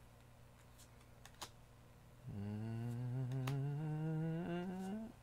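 A man humming one long note, starting about two seconds in and rising slowly in pitch for about three seconds. Faint clicks of trading cards being handled come before and during it.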